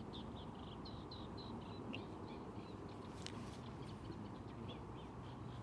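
Small birds chirping and singing, faint, with many short calls a second, over a low steady rush of water from the weir.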